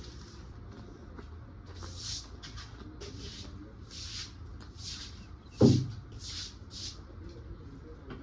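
A string of short scratchy scraping strokes, roughly one a second, with one heavy thud about halfway through.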